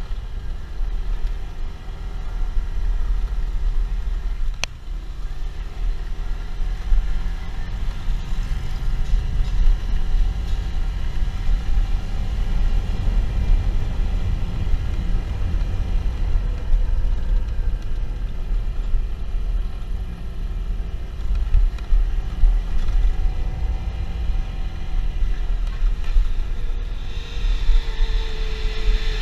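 Motorcycle engine running under way, its pitch rising and falling gently, under heavy wind rumble on the microphone.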